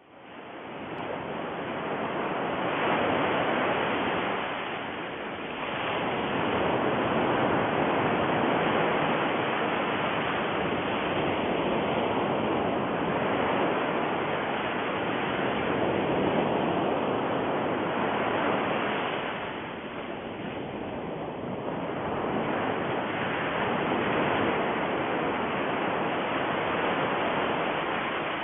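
Steady rushing noise, like surf or a waterfall, swelling and easing a few times.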